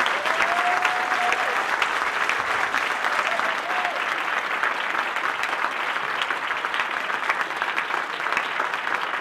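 Audience applauding steadily, a dense clatter of many hands clapping, with a voice or two calling out over it in the first few seconds.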